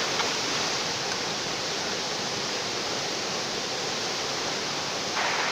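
Rushing floodwater of a river swollen by a flash flood after heavy rain in the mountains: a steady, even rush of water noise, a little louder near the end.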